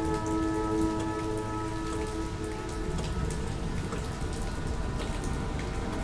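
Steady rain with scattered drops, under a held dark drone chord of several sustained tones that fades out about halfway through.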